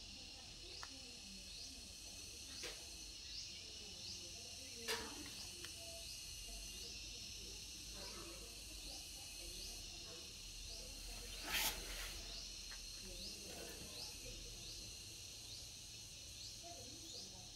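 Faint clicks and knocks from the plastic and metal parts of a Ricoh 1027 drum/developer unit as the developer roller is turned at its gear end and lifted by hand, the sharpest knock about twelve seconds in. Behind it, a short high chirp repeats about once a second over a steady high hiss.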